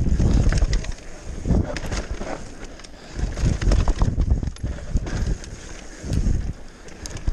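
Mountain bike riding down a rough trail: wind buffets the microphone in four heavy rumbles, with scattered clatter and knocks from the bike over bumps.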